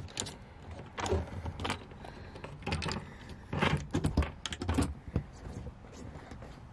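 A run of sharp clicks, knocks and rattles as the RV's outside gas supply is turned on by hand. The loudest clatter comes about three and a half to five seconds in.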